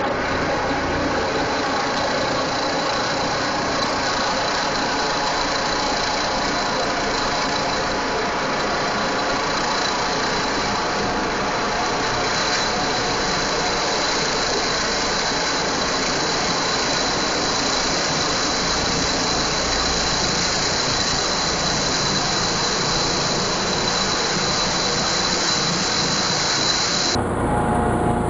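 Air medical helicopter flying overhead on its approach: steady rotor and turbine engine noise with a thin high whine. The sound changes abruptly near the end.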